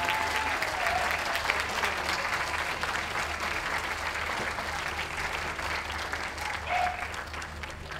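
Ringside audience applauding, the clapping slowly thinning out toward the end.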